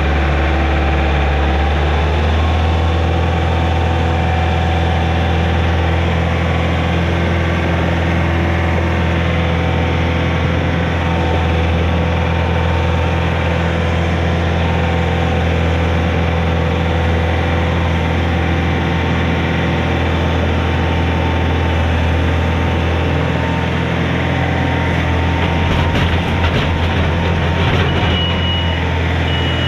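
Mini excavator's diesel engine running steadily. Near the end a travel alarm starts beeping in an even, high-pitched pattern.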